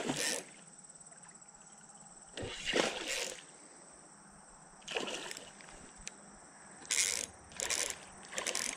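A hooked bass splashing and thrashing at the water's surface in a series of short splashes, several seconds apart, as it is reeled toward the bank.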